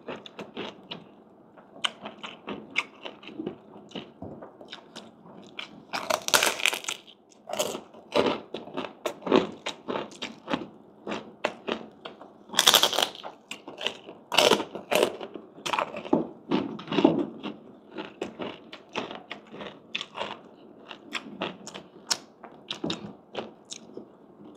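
A person biting and chewing crispy fried pork (chicharon or crispy pata skin), with many irregular, crisp crunches. The loudest crunches come about six and thirteen seconds in.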